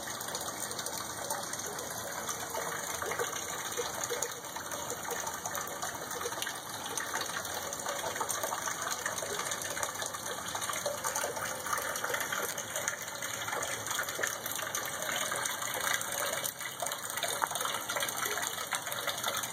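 Water dropping out of a concrete storm drain and splashing into the water below: a steady rushing splash.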